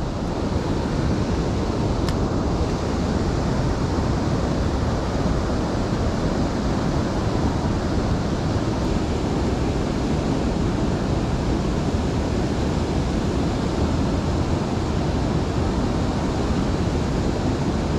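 Steady rushing of river water, with wind blowing on the microphone.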